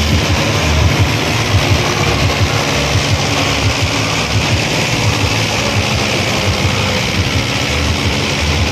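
Sonalika DI 35 tractor's diesel engine running under heavy load as it pulls a fully loaded trolley through sand, a steady low rapid pulsing.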